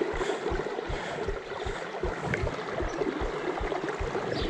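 Flowing river water rushing and gurgling close by, with frequent soft low thuds mixed in.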